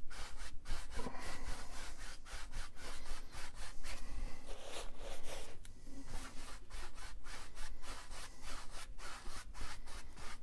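Large paintbrush scrubbing back and forth across a stretched canvas in crisscross strokes, blending wet oil paint: a quick run of dry, brushy swishes, several strokes a second.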